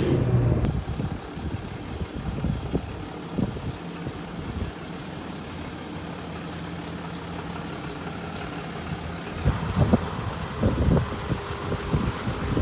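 Car engine idling steadily, with uneven low rumbling and knocks from about ten seconds in.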